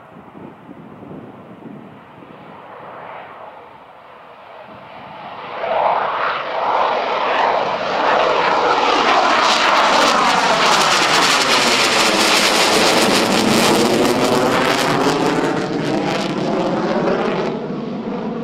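MiG-29 fighter's twin RD-33 turbofan engines at takeoff power as the jet climbs out and passes overhead. The jet noise is moderate at first, grows much louder about five seconds in, and eases off a little near the end as the jet moves away.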